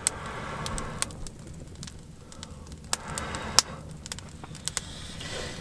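Wood fire crackling in a small metal box wood stove, irregular sharp snaps over a low, steady rush as the newly lit fire gets going.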